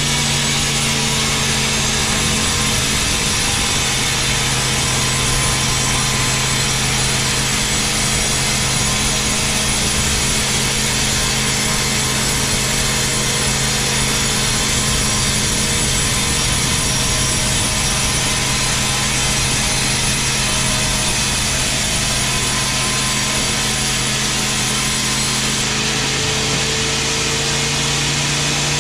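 Sawmill band saw ripping lengthwise through a large teak log: the blade and motor run loud and steady, with a continuous low hum under the noise of the cut.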